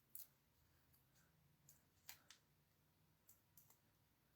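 Near silence, with a few faint, scattered clicks and ticks of paper backing being peeled off foam adhesive dimensionals.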